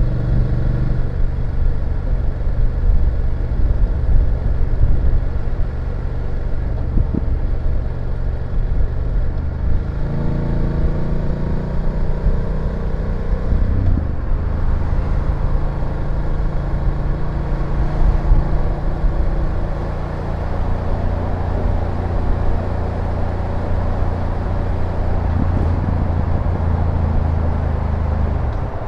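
BMW F850GS parallel-twin engine and exhaust running steadily while riding; the engine note shifts in pitch several times as the throttle and gears change.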